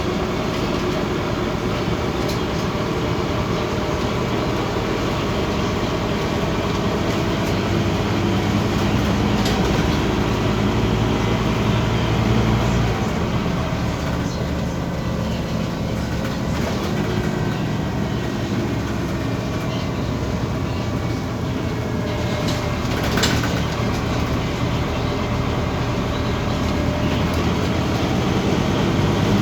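Scania OmniCity city bus driving along: steady diesel engine drone with road and body noise. The deepest part of the engine rumble drops away about halfway through, and there is a single short knock near the end.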